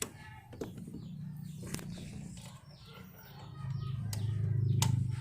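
Birds chirping over a low, steady rumble that swells louder in the last second or so, with a few sharp clicks.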